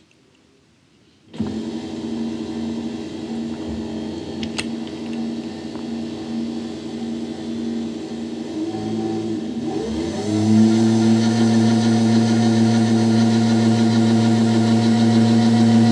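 Milling machine's electric motor starting about a second in and running steadily, its pitch rising and its level getting louder about nine to ten seconds in before holding steady. A single sharp click comes in between.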